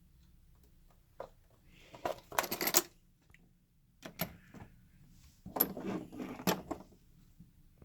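Clicks and rattles of a plastic model train piece being handled and turned over, in two short bursts of clatter.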